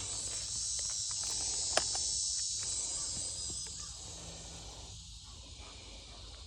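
Steady high-pitched chorus of insects, with a single sharp click a little under two seconds in.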